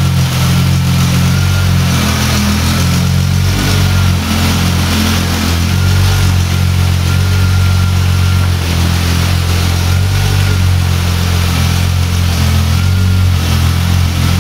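Car engine idling steadily, with a faint high whine that comes and goes.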